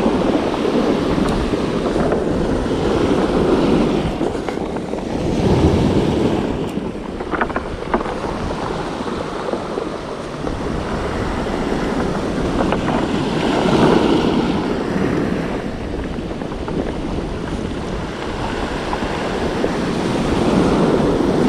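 Surf breaking and washing up a cobble beach, swelling louder every several seconds as each wave comes in, with wind buffeting the microphone.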